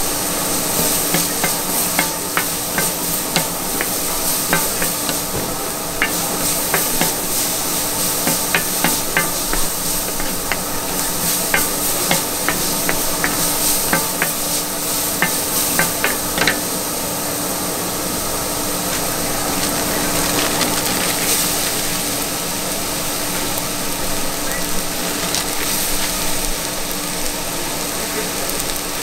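Food sizzling on a hot flat-top griddle, with quick sharp clicks of metal spatulas tapping and scraping the plate, dense through the first half, then mostly a steady sizzle.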